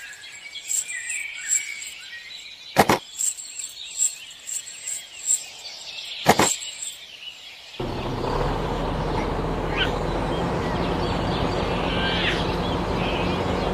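Small birds chirping, with two sharp clicks and faint high ticks in the first half. About eight seconds in, the sound cuts abruptly to a steady rushing noise with a low hum, and the chirps go on over it.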